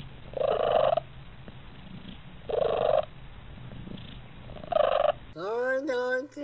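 Siamese cat purring, a steady low rumble under three louder rough sounds about two seconds apart. Near the end a different cat lets out a drawn-out meow that rises and wavers in pitch.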